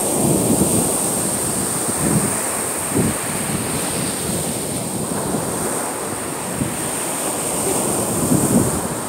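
Ocean surf washing on the beach, with gusts of wind buffeting the microphone.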